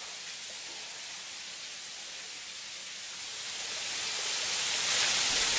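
Steady hiss of water falling over a natural boulder waterfall, growing louder over the second half.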